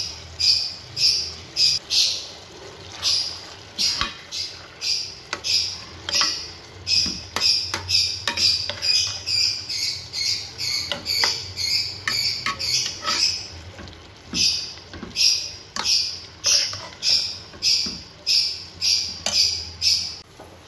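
Metal spoon scraping against a metal pot while minced meat (keema) is stirred as it fries, a rhythmic high scrape about two to three strokes a second, with a few sharp clinks.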